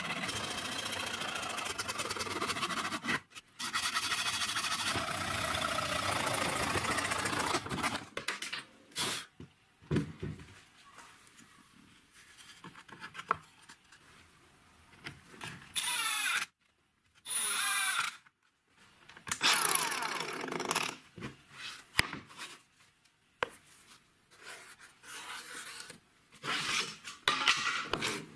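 A hacksaw cutting a PVC drain-pipe end cap for several seconds. After that come quieter handling noises and several short runs of an electric power tool, some with a high whine.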